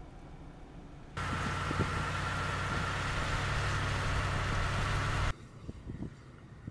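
A stretch of steady vehicle noise, an engine hum under a rushing noise, that starts abruptly about a second in and cuts off just as abruptly about four seconds later.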